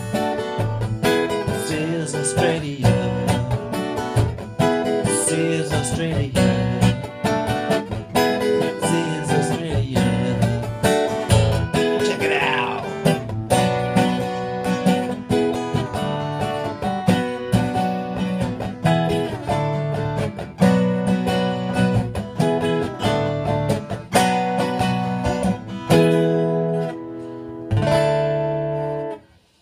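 Acoustic guitar strummed in steady rhythmic chords, an instrumental passage of the song. Near the end a chord is held and then cut off abruptly before the strumming starts again.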